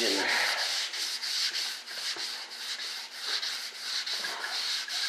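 220-grit sandpaper on a firm sanding block rubbing back and forth over a primed fiberglass part. It makes a steady scratchy hiss in quick, even strokes, several a second.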